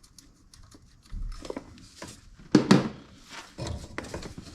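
Light metallic clicks and taps of loosened bolts being spun out by hand and pulled free, with a few louder clinks about two and a half seconds in.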